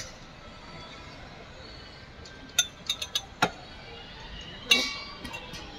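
Steel spoon clinking against a steel cooking pot and bowl as boiled sweet corn is scooped out. A handful of sharp metallic clinks come between about two and a half and three and a half seconds in, then a louder, ringing one near the end.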